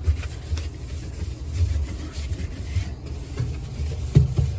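Scrub pad rubbing back and forth over the inside walls of a refrigerator, breaking caked-on grime loose: an uneven scrubbing with a few light knocks, a stronger one about four seconds in.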